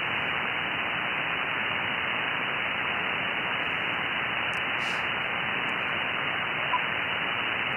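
Icom IC-7610 transceiver receiving an empty 20-metre frequency in upper sideband: a steady hiss of band noise through the receiver's narrow filter, with no station heard, so the frequency is clear. A single short high beep sounds near the end.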